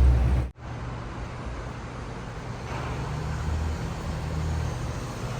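A loud low rumble cuts off suddenly about half a second in, then steady background noise of vehicles follows: a low hum under a hiss.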